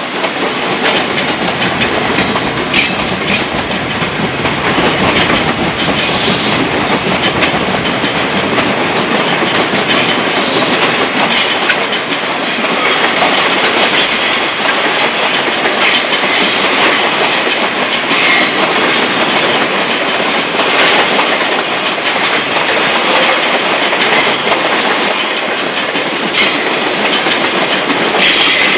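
A JR Freight container train's wagons rolling steadily past at speed, wheels clattering irregularly over rail joints and points, with an intermittent thin high-pitched squeal from the wheels.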